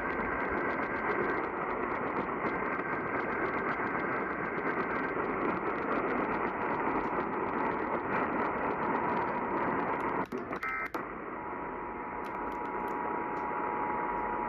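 Hiss of static from a weakly received radio station. About ten seconds in, the signal changes with a short burst of data tones, then a steady tone sounds through the static: the header and two-tone attention signal that open an Emergency Alert System test.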